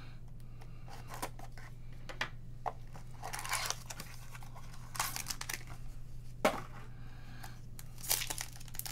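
Trading card packs and cards being handled: foil wrappers crinkling and tearing and cards rustling and sliding in intermittent bursts, with a sharp click about six and a half seconds in. A steady low hum runs underneath.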